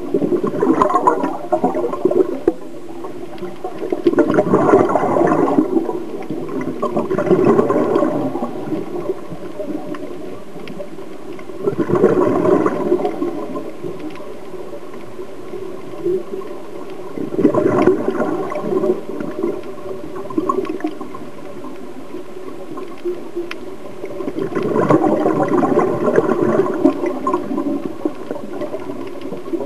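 Scuba diver breathing underwater through a regulator: a gurgling burst of exhaled bubbles every few seconds, each lasting a second or two, over a steady underwater hiss.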